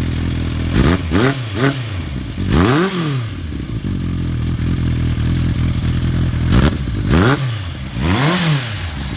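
Kawasaki ZR1100 Zephyr's inline-four engine idling through a Kerker 4-into-1 exhaust and being revved in blips: three quick revs and a longer one starting about a second in, then two quick revs and a longer one from about six and a half seconds. The engine is still warming from a cold start, just off the choke.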